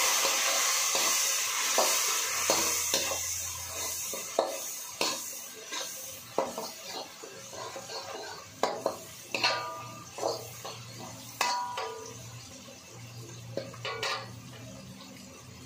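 A metal utensil stirring and scraping in a cooking pan, clinking against it many times, some strikes ringing briefly. Under it, sizzling that is loudest at the start and dies down over the first few seconds, as vinegar and soy sauce hit the hot pan.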